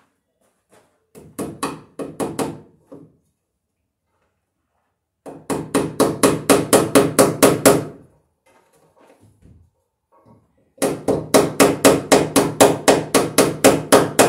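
Hammer driving a fastener into an overhead wooden ceiling joist: three runs of quick, even blows, about five a second, the last run the longest.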